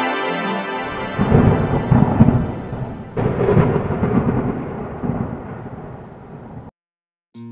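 Thunder sound effect: a crackling rumble starts about a second in and a second clap follows about three seconds in. Both roll away and cut off abruptly near the end.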